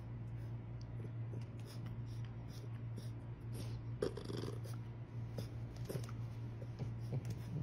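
Soft rustling and small scratches of a chow chow puppy squirming and pawing while held on a bed, over a steady low hum, with a short soft sound about four seconds in.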